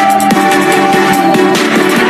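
Background music with electronic beats and steady sustained notes.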